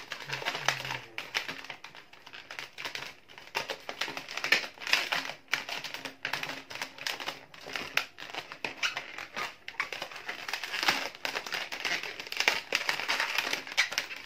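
Latex modelling balloons being twisted and shaped by hand, rubber rubbing on rubber and on the fingers in an irregular crackle of short squeaky scrapes.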